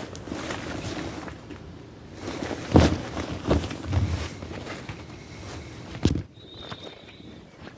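Handling of gear being packed: rustling with a few sharp knocks of hard objects, the loudest about three seconds in and another near the end.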